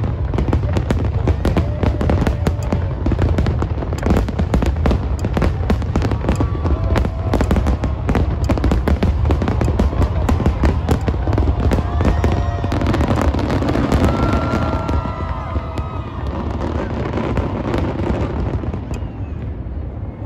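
Aerial fireworks bursting in a dense, rapid barrage of bangs and crackles over a deep continuous rumble. In the second half the bangs thin out and the level drops, while crowd voices call out and cheer.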